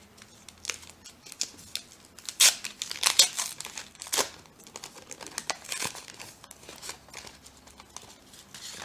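Foil trading-card pack wrapper being torn open and crinkled, then crumpled in the hand, a run of sharp crackles that are loudest from about two and a half to four seconds in.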